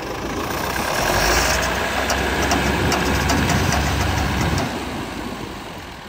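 Belarus tractor's diesel engine running as it pulls a potato planter along. It grows louder about a second in and eases off after about four and a half seconds, with light clicks over the loud stretch.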